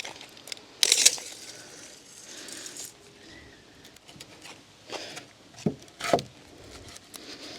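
Handling noises from work on a wooden table frame: a short scraping rush about a second in, then a few light knocks and taps.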